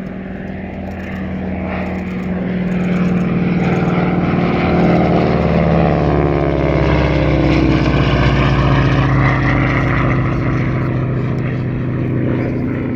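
A North American Harvard (T-6 Texan) trainer makes a low pass, its Pratt & Whitney R-1340 Wasp radial engine and propeller at display power. The sound swells to a peak about halfway through. The engine's pitch drops as the aircraft goes by, and then the sound fades slightly.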